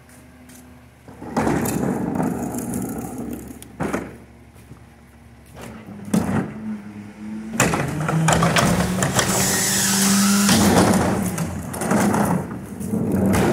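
Autocar ACX McNeilus rear-loader garbage truck emptying a trash cart. A plastic cart rolls over asphalt and knocks as it is hooked onto the cart tipper. About halfway through, the truck's engine speeds up to drive the hydraulic tipper, which lifts and dumps the cart with a rattle of falling trash.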